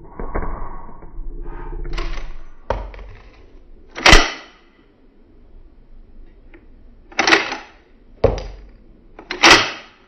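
Mauser C96 broomhandle pistol's action worked by hand, the bolt drawn back and let snap forward: four sharp metallic clacks, the loudest about four seconds in, after some handling rustle and small clicks.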